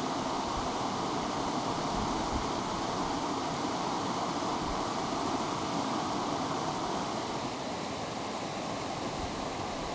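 Stream water rushing steadily.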